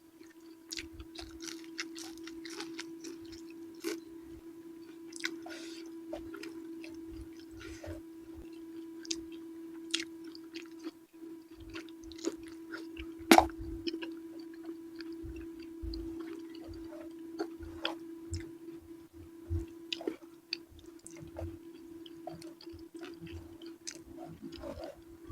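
Close-miked chewing and mouth smacks from eating eggplant in sambal, with irregular wet clicks and one sharp louder smack about halfway through. A steady low electrical hum runs underneath.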